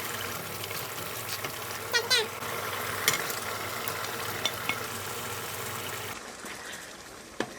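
Tomatoes frying in hot oil with chili oil, a steady sizzle with a few sharp utensil clicks against the pan. The sizzle drops away about six seconds in.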